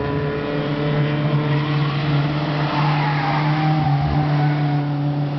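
Mazda 323 race car passing close at speed about four seconds in, its engine note falling in pitch as it goes by, over a steady low engine drone.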